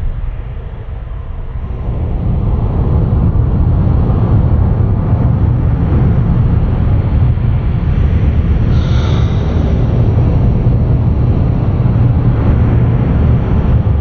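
Wind buffeting the microphone, a loud steady rumble, over small waves washing onto a sandy shore; it grows louder about two seconds in, with a brief hiss about nine seconds in.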